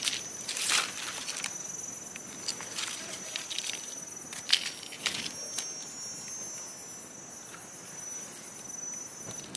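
Insects chirring in a steady high-pitched drone, with a few short crisp rustles and snaps as a mushroom is handled and cut from the leaf litter with a small knife.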